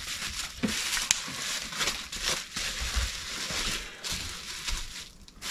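Packing wrap crinkling and rustling in short crackles as it is wrapped by hand around a glass dish lid, dying down near the end.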